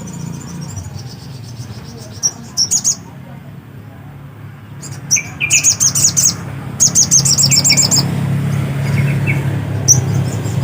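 Little spiderhunter (sogok ontong) singing hard: bursts of rapid, sharp high chirps, each a second or so long, with short pauses between, over a steady low hum.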